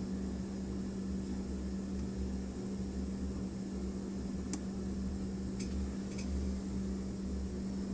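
A steady low hum, with three faint light clicks in the second half from a lock pick working the pins of an American 5200 padlock.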